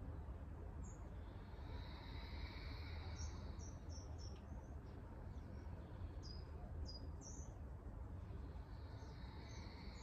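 Outdoor ambience: small birds chirping in short, high notes, several in the middle of the stretch, over a steady low rumble.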